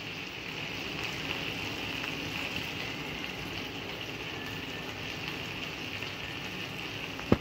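Chicken pieces sizzling steadily in hot mustard oil in a frying pan, with a sharp click near the end.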